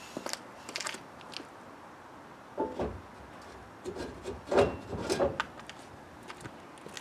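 Footsteps on concrete, then a few knocks and clanks with a short metallic ring as the metal truck bed extension frame is handled and set down, the loudest about two-thirds of the way in.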